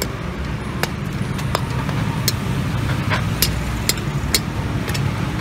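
Metal ladle clinking and scraping against a metal wok as Maggi noodles are stirred in their broth, about ten sharp clinks at irregular intervals. Under it is a steady low rumble.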